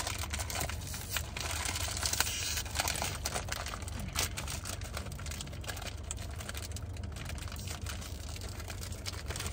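Crinkling and crackling of a plastic snack wrapper being handled and worked open by hand, in many quick irregular crackles. A steady low hum runs underneath.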